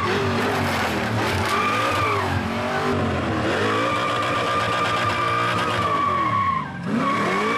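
A Holden Commodore's LS2 V8 held at high revs during a burnout, the revs rising and falling, with the rear tyres squealing steadily as they spin. Near the end the revs drop briefly as the throttle comes off, then climb straight back up.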